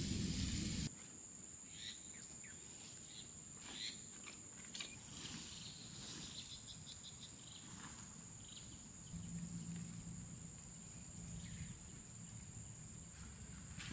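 Rural ambience: a steady, high-pitched insect drone, crickets or similar, with scattered short chirps and a quick rippling run of notes about halfway through.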